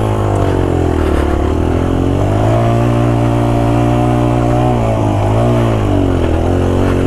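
Suzuki DR-Z125L's small four-stroke single-cylinder engine pulling away and riding down a dirt trail. The revs rise at the start, hold steady, dip briefly about five seconds in, then pick up again.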